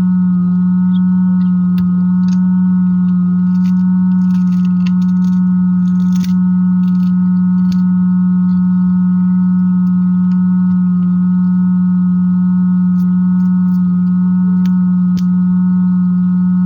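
A loud, steady hum holding one low pitch, with fainter steady higher tones above it, and scattered light clicks and taps.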